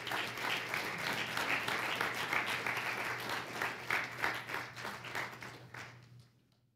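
Congregation applauding, the clapping thinning out and stopping about six seconds in.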